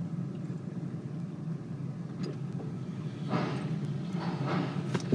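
Car running slowly, heard from inside the cabin as a steady low hum while it rolls onto a ferry's loading ramp. A few short rushes of noise come in the second half, and a short knock sounds at the very end.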